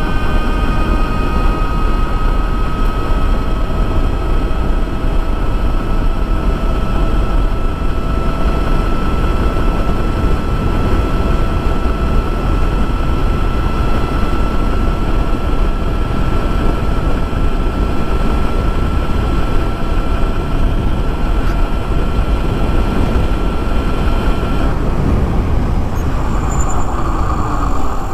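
Ultraviolette F77 electric motorcycle at speed in Glide mode: heavy wind and road rush over a thin, steady electric-motor whine. Near the end the whine stops as the bike slows, leaving the wind noise.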